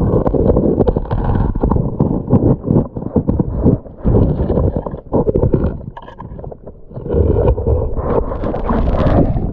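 Rocks knocking and scraping together on a streambed as a gloved hand digs one out, heard through an underwater camera: a dense run of dull clunks over a rumble of churning water, with a louder rush of water near the end.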